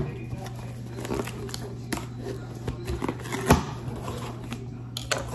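Knife cutting through the tape along the seams of a cardboard box, a run of short scraping and crackling cuts, with sharp knocks at the start and about three and a half seconds in.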